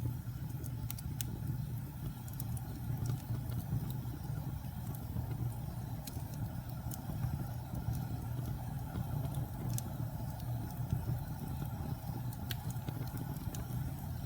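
Wood fire burning: a steady low rumble with scattered sharp crackles and pops, a few a second at most.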